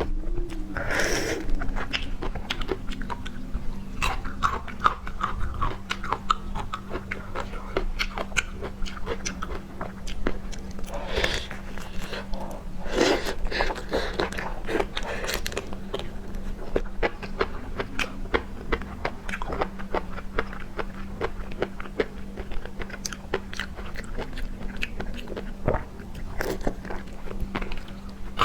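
Close-miked eating of seafood: continuous chewing and biting with many small crunchy clicks and a few louder crunches. A steady low hum sits underneath.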